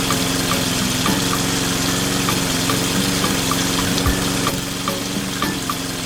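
A small motor running steadily, with a hum, an even hiss and a light regular ticking about three times a second.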